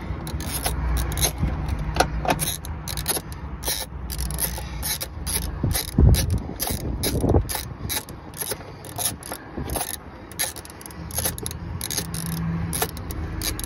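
Socket ratchet clicking in quick irregular runs, several clicks a second, as it is worked back and forth to undo the nuts on the fuel filter carrier. A low steady hum sits underneath.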